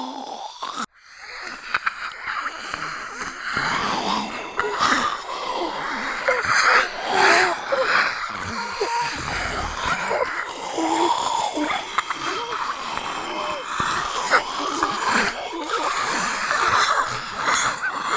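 Zombie voice sound effect: raspy, wheezing breaths with gurgling groans and growls, the voice wavering in pitch here and there. It breaks off briefly about a second in, then carries on.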